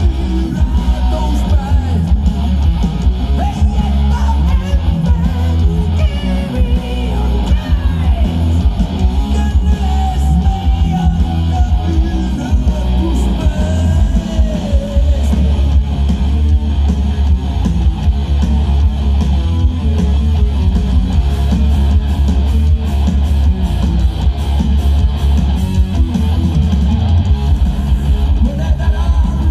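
Heavy metal band playing live: electric guitars, bass guitar and drums, with a singer's vocals, heard loud and bass-heavy from the audience.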